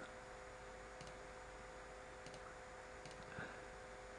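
A few faint computer mouse clicks, spaced about a second apart, over a low steady hum.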